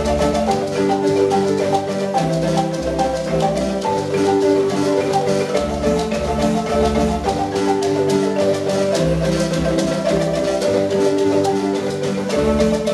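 A marimba ensemble of several wooden marimbas plays a fast, repeating interlocking pattern of struck mallet notes over steady, deep bass-marimba notes.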